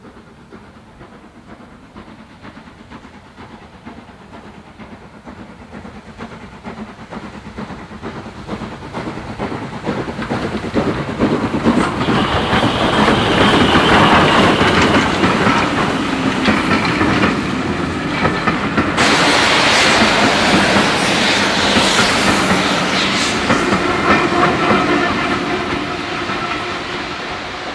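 Steam train approaching and passing, growing from faint to loud about halfway through, then its coaches rolling by with a clickety-clack of wheels over rail joints. A sudden hiss joins about two-thirds of the way in.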